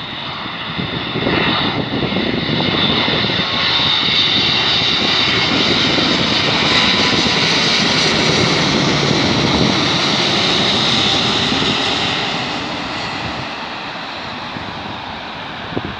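Boeing 777-200ER jet airliner passing low overhead on final approach with landing gear down: its twin jet engines' rumble and high fan whine build to a peak about midway, then fade as it moves away toward the runway.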